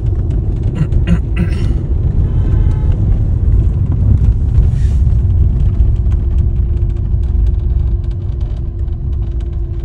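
Low, steady rumble of a car driving along an unpaved road, heard from inside the car, with a steady hum over it and a brief pitched tone about two seconds in.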